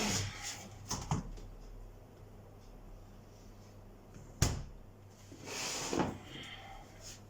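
Refrigerator door and its fittings being handled while the door is taken off to reverse it: a couple of light clicks, a single sharp knock about four and a half seconds in, then a short scraping rustle about a second later.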